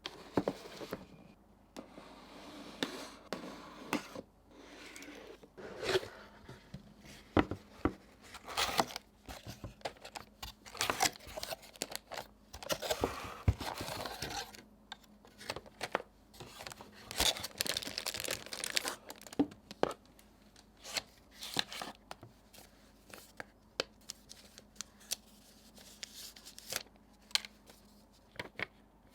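Keyboard packaging being opened by hand: paper and plastic tearing and crinkling in stretches of a second or two, with scattered sharp taps and knocks as the box and parts are handled.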